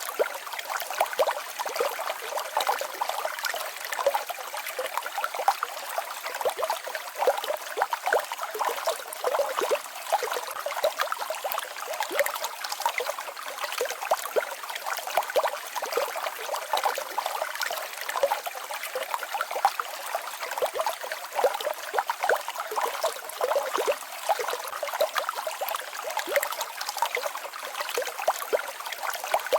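Small mountain waterfall babbling: water trickling and splashing steadily, a dense run of small splashes with no low rumble.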